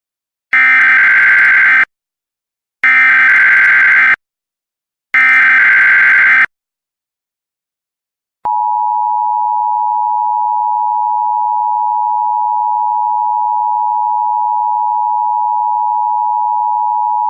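Emergency Alert System SAME header: three bursts of buzzy digital data tones, each about a second long. Then, after a click about halfway through, the steady two-tone EAS attention signal sounds and holds, announcing an Emergency Action Notification.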